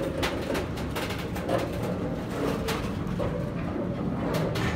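Freight train of flat wagons carrying tank containers rolling past: a steady rumble with irregular clanks and clicks from the wheels and couplings.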